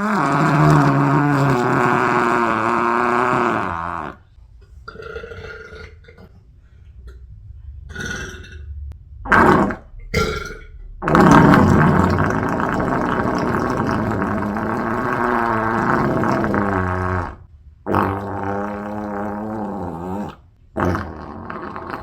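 A person belching loudly several times: some long, drawn-out burps of several seconds with a wavering pitch, and some short ones in between.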